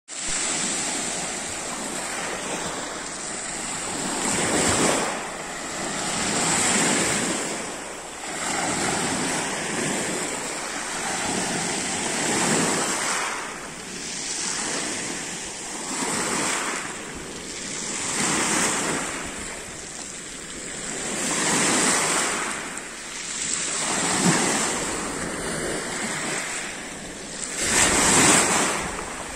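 Small sea waves breaking and washing up over a pebble beach, swelling and ebbing every couple of seconds, with a louder surge near the end. Wind rumbles on the microphone.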